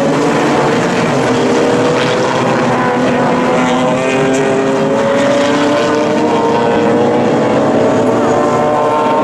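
A large pack of GT and touring race cars running together through a corner, many engines overlapping in a loud, steady din. Several engine notes rise slowly in pitch as cars accelerate.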